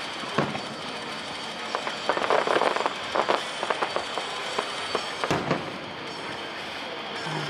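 Aerial fireworks going off: a boom about half a second in, then a dense spell of crackling around the middle, scattered pops, and another boom a little past five seconds in.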